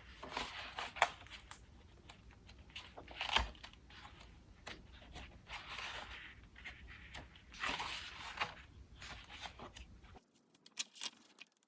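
Paper pages of a planner being turned and handled, with several soft page-flip swishes and light paper rustles and taps. The sound drops away shortly before the end, leaving only a few faint clicks.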